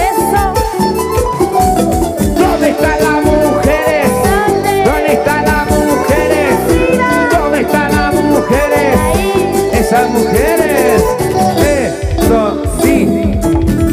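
Latin dance music played loud by a live band, with a steady beat and melodic lines that bend in pitch.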